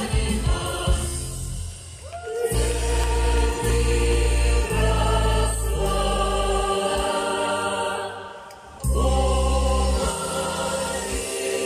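Choir of a Mordovian folk song and dance ensemble singing over amplified music, in long held notes above a sustained bass. The music drops out briefly twice, about two seconds in and again just after eight seconds.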